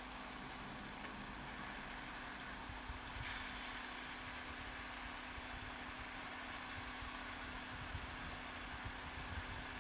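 Chicken pieces frying in oil in a pan, a steady soft sizzle, over the constant hum of the electric cooktop. A few light taps of metal tongs near the end.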